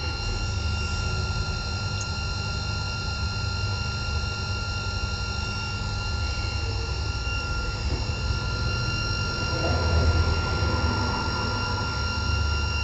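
Crossflow membrane filter's pump motor running steadily under pressure, a low hum with a few fixed high-pitched whining tones.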